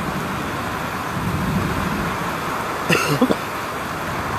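Severe thunderstorm wind and heavy rain giving a steady, dense rushing noise, with a short clatter about three seconds in.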